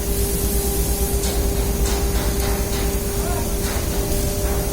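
Steady machine noise with a constant humming tone and low rumble, with a few faint light taps.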